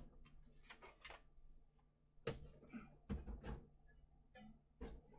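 Faint scattered knocks and light rustles of a heavy boxed statue being handled and settled on a floor scale, several soft taps spread over a few seconds.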